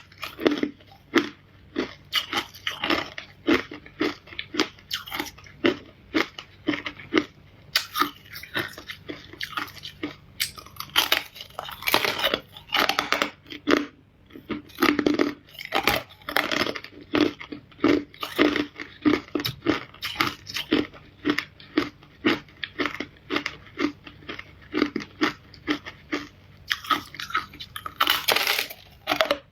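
A person chewing and biting hard ice close to the microphone: a steady run of loud crunches, several a second, with only brief lulls between bites.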